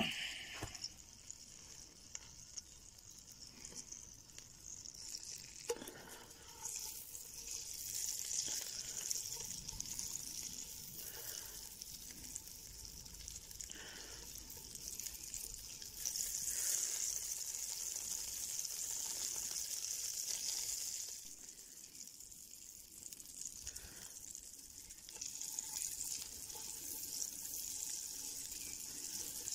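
Burger patties sizzling as they fry in hot fat in a cast-iron Dutch pot. The sizzle grows louder about six seconds in and is loudest for a few seconds in the middle.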